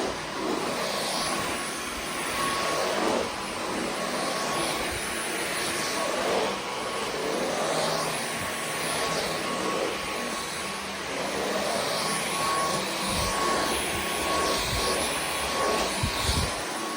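Dyson V15 Detect Absolute cordless stick vacuum running: a steady motor whine over a rushing hiss that swells and fades every second or two as it is pushed back and forth. A couple of low knocks near the end.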